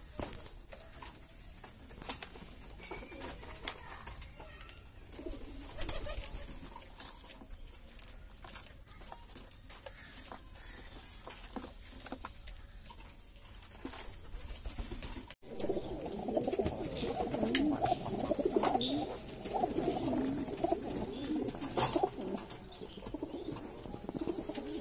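Several domestic pigeons cooing. In the first half it is quiet, with faint coos and scattered light clicks. After an abrupt cut about halfway through, a louder, denser chorus of overlapping coos takes over.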